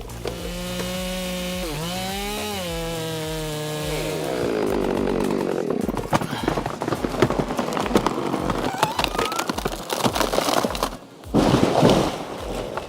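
Chainsaw running at high revs, its pitch dipping and recovering, then sinking after about four seconds into rough sawing noise with many sharp cracks. A short loud burst comes near the end.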